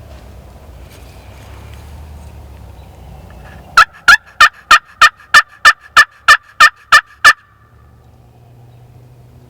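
Turkey call worked by the hunter: a run of about a dozen loud, evenly spaced hen yelps, about three a second, starting about four seconds in, imitating a hen to draw in a tom.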